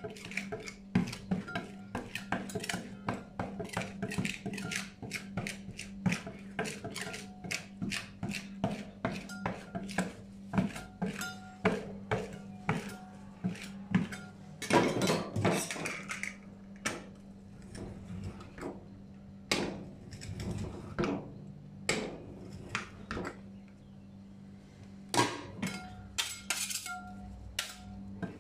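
Two metal spatulas tapping and chopping rapidly on the steel cold plate of a rolled-ice-cream pan, several strikes a second, as Nutella is worked into the freezing cream, with a longer, louder scraping stroke about halfway through. A steady low hum runs underneath.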